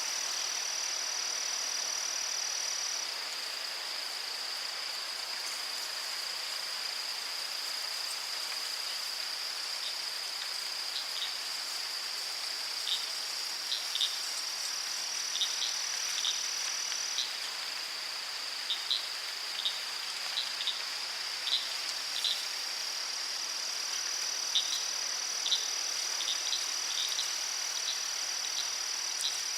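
Crickets trilling in a continuous high-pitched drone, two trills overlapping, one dropping out after a few seconds and coming back around the middle. From about a third of the way in, short high chirps repeat irregularly over the trilling, against a soft steady hiss.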